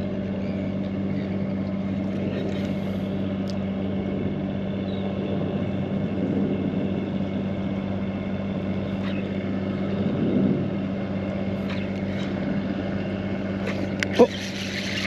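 Steady low hum of a boat engine running at a constant speed, its pitch unchanging. A short sharp sound near the end.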